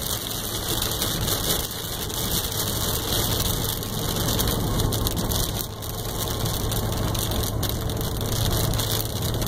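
Steady engine and road noise inside a Dodge Ram pickup's cab driving along a wet highway, with a low hum under a constant crackle.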